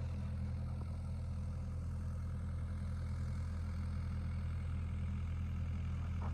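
Diesel engine of a piece of digging equipment idling steadily, a low even hum.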